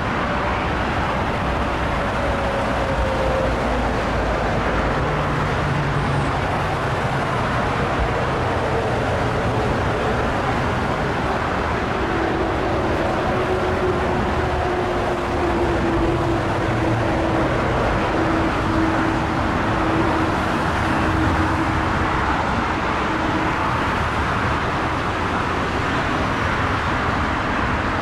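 Boeing 747-8's four GEnx-2B turbofans at take-off thrust: a loud, steady jet roar as the airliner rolls, lifts off and climbs away. A faint whine in the roar slides down in pitch over the first few seconds.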